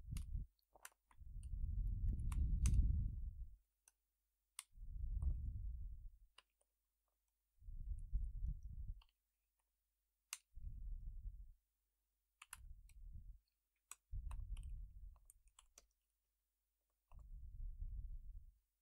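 Typing on a computer keyboard: scattered key clicks as code is entered, with about seven low, dull rumbles of a second or two each between them.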